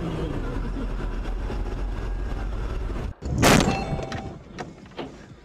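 Steady car and road rumble, then, about three and a half seconds in, a loud crash of a vehicle collision as a blue Lada Niva is hit side-on, followed by a few light clinks of debris.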